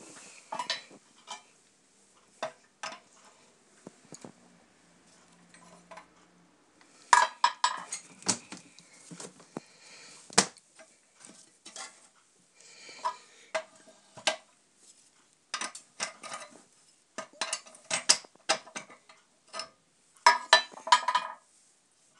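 Metallic clinks and clanks in quick scattered clusters from a small Pipsqueak multifuel stove being handled at its firebox door and fittings.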